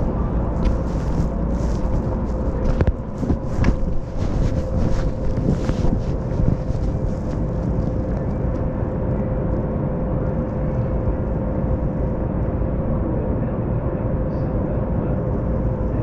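Las Vegas Monorail train running, heard from inside the car: a steady low rumble with a constant motor whine, and a run of clicks and rattles through about the first six seconds.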